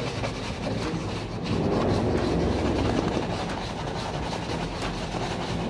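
Shoe brushes buffing polished leather shoes with fast side-to-side strokes: a rapid scratchy rubbing.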